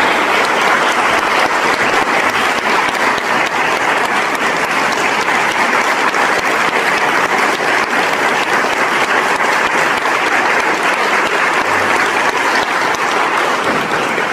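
A congregation applauding, loud and steady.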